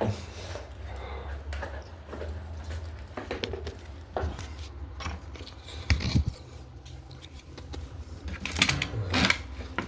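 Scattered clicks, rustles and light knocks of an object being picked up and handled, with a louder thump about six seconds in and a burst of clatter near the end.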